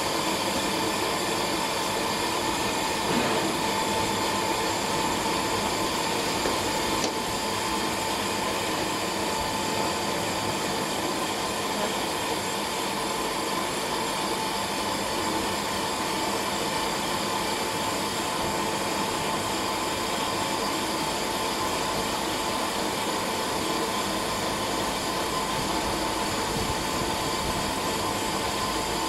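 Pet-food and fish-feed extruder running steadily under its electric motor: a constant mechanical noise with a steady whine through it.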